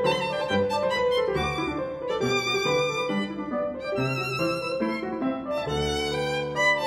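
Background music: a violin melody with wavering held notes over a lower accompaniment.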